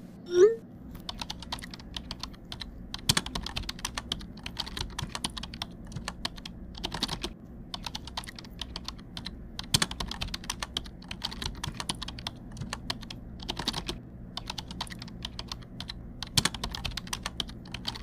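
A short rising chat alert tone about half a second in, the loudest sound, as a new message arrives. Then runs of rapid keyboard typing clicks, with a couple of brief pauses, as a reply is typed out.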